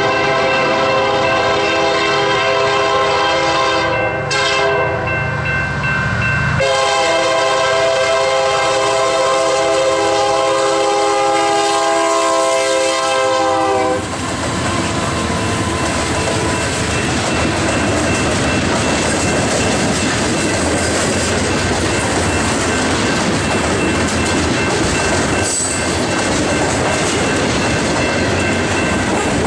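Union Pacific SD70M freight locomotives blowing their horn as they approach and pass: a long blast, a short one about four seconds in, then a long one that drops slightly in pitch as the locomotives go by and stops about fourteen seconds in. After that, the steady wheel-on-rail noise of a long string of covered hopper cars rolling past at speed.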